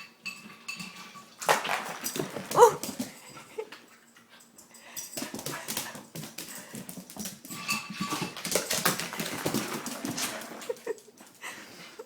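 Two dogs tussling over ice cubes from a water bowl: clattering and scrabbling in two bouts, with a short dog whine about two and a half seconds in.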